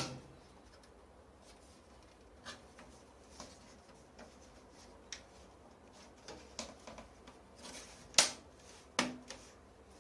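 Scattered light clicks, taps and rubs of computer tower case parts being handled and fitted, with two louder knocks near the end.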